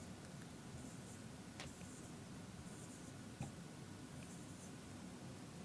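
Dry-erase marker squeaking faintly on a whiteboard in short strokes as letters are written, with a couple of light ticks.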